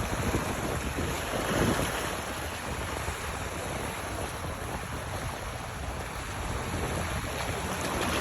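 Steady wind and water noise, with wind buffeting the microphone.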